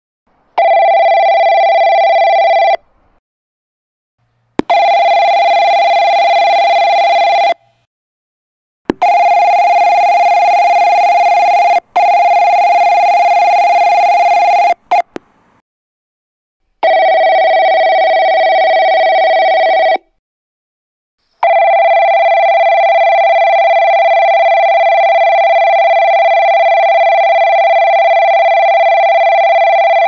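Japanese railway platform electric bells ringing: four Kanno-type opening bells, the kind that rings before an automatic platform announcement, each a steady ring of two to six seconds with a silence between. From about two-thirds of the way in, a long continuous approach bell rings, the signal that a train is approaching the platform.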